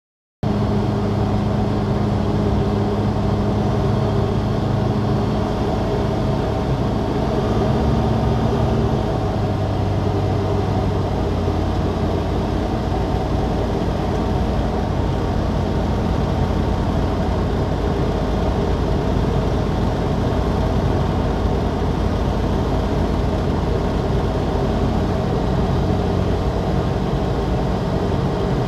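SportCruiser light aircraft's Rotax 912 engine and propeller droning steadily inside the cockpit, cutting in abruptly just after the start. The pitch drops slightly about ten seconds in as the aircraft descends on approach.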